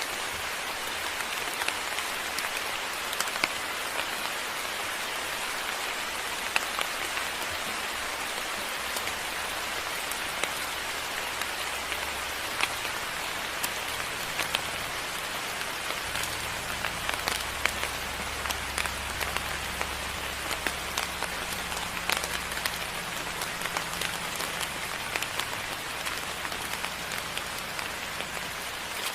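Moderate rain falling steadily, with many sharp drops striking close by. A low rumble comes in underneath about halfway through.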